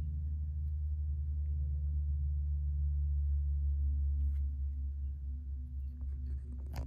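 A deep, steady hum. A fainter higher tone joins at about four seconds and pulses about twice a second, and a single sharp click comes near the end.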